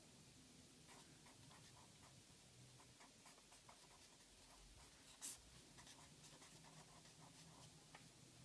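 Ballpoint pen writing on a paper notepad: faint, quick scratching strokes, with one sharper tick about five seconds in.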